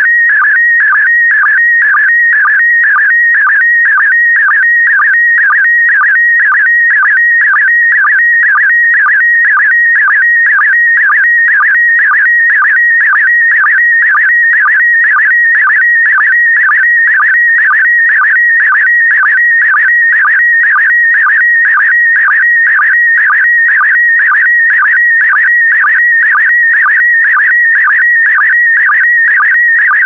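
PD120 slow-scan television (SSTV) signal mid-image: a loud, continuous warbling tone near 2 kHz that dips lower briefly about twice a second. Each dip is the sync pulse that begins a new pair of picture lines.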